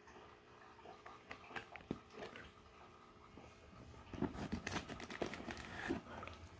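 Plastic fish bags and a styrofoam shipping box being handled: scattered clicks and crinkles, then a denser, louder run of plastic crinkling and rubbing about four seconds in.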